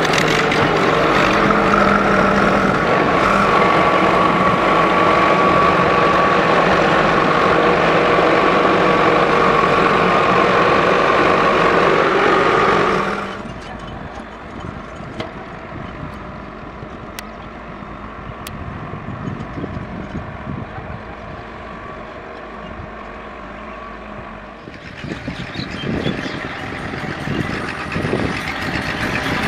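Farm tractor diesel engine running close by with a steady drone. A sudden cut about 13 s in leaves quieter, more distant engine sound, which grows louder again near the end.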